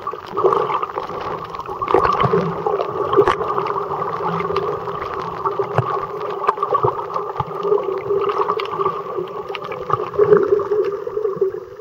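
Muffled underwater sound picked up by a submerged camera: a steady hum with gurgling and scattered clicks heard through the water.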